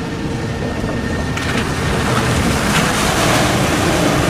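Steady, loud rushing noise with no clear tone, a little louder from about a second and a half in.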